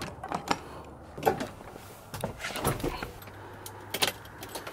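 Truck cab door latch clicking open and the door swinging, followed by a scattering of clicks and knocks of climbing into the cab and handling the keys at the dashboard.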